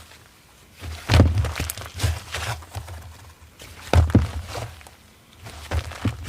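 Slime being handled by hand, squeezed and pressed, giving short bursts of sticky crackling pops with dull thumps against the surface. The bursts come about a second apart with short pauses between.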